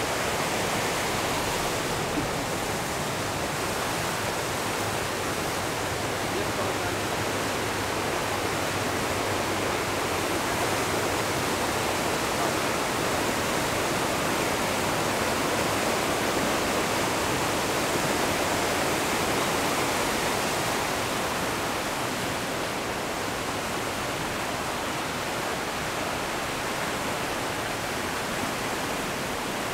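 Steady rushing of fast-flowing or falling water, an even noise that swells slightly midway through.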